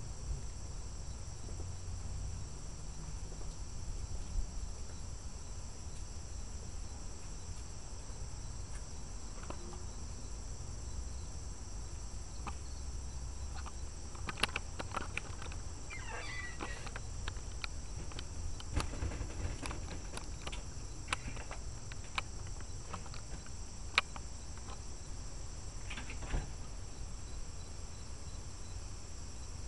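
Steady high-pitched chorus of insects, with scattered light clicks and taps and a low rumble from the handheld microphone.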